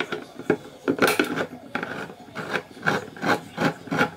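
A hand-cranked can opener being turned around the lid of a can of milk, making a repeated grating click with about three turns a second.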